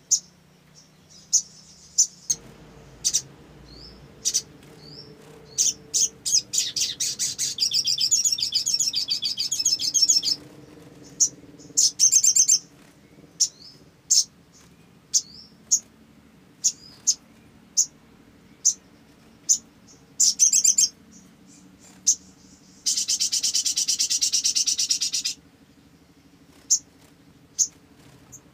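A sunbird calling: a string of short, sharp, high chirps, broken by rapid trills, the longest two running about four and two seconds.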